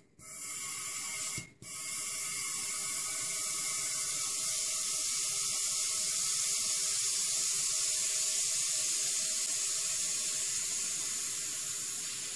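Air hissing into an evacuated CRT picture tube through its opened neck as the vacuum is released. Two brief breaks in the first second and a half, then one steady hiss that slowly weakens near the end.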